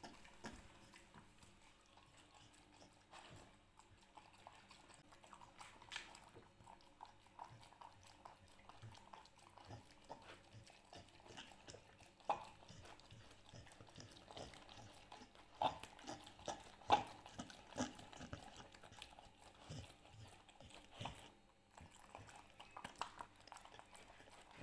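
Samoyed eating chicken and rice in broth from a bowl: wet chewing and mouth smacks, with scattered sharp clicks, the loudest in the second half.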